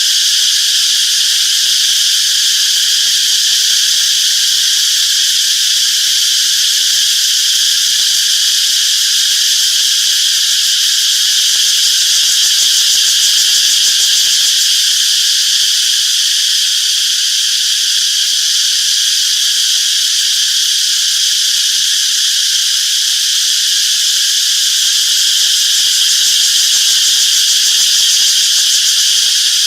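Loud, steady chorus of singing insects, a continuous high-pitched drone that doesn't change.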